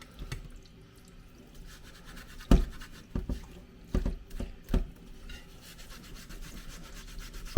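Abrasive pad scrubbing a rusty steel car part, with several sharp knocks of the metal being handled in the middle, then steady rapid rubbing.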